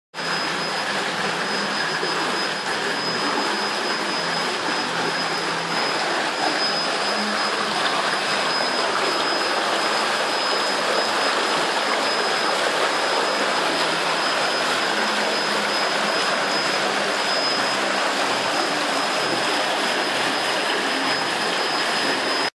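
Steady rushing and churning of pool water driven by the pool's water jets, with a thin, steady high-pitched whine running over it.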